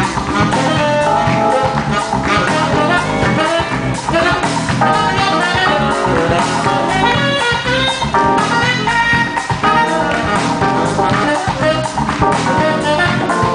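Live band music: brass horns playing a melody over driving samba-style batucada drumming.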